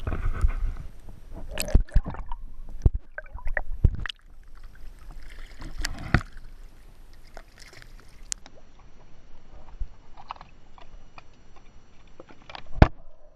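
Seawater sloshing and gurgling around a camera held at the surface against a boat's hull, with scattered sharp knocks and clicks; the loudest knock comes near the end.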